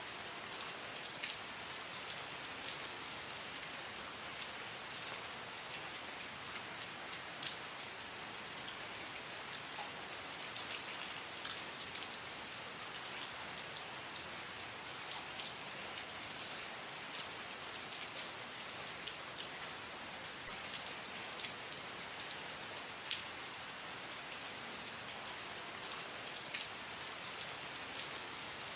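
Steady rain falling, with many individual drops ticking and pattering on a surface.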